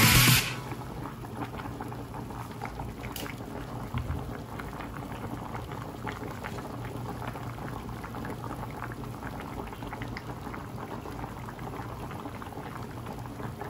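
Lamb and vegetable stew (idam) boiling in a pan: a steady bubbling with many small pops and crackles.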